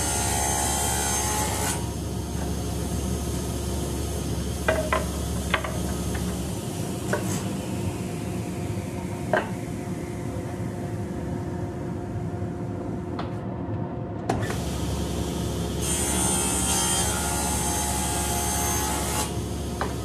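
Table saw running, its blade cutting through half-inch birch plywood twice: once at the start and again about three-quarters of the way through. In between the saw runs on and a few sharp knocks come from wood pieces being handled.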